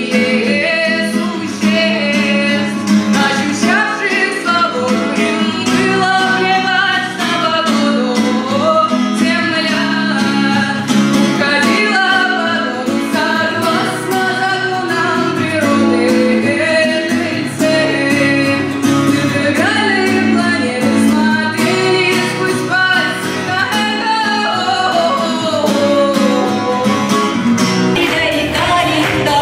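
A song, a singer's melody over instrumental accompaniment. Near the end the music changes to a fuller piece with a stronger bass.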